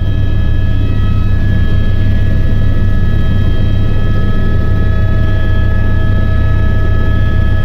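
Helicopter turbine and rotor noise heard from inside the cabin during take-off: a loud, steady low drone with several steady high-pitched whining tones over it.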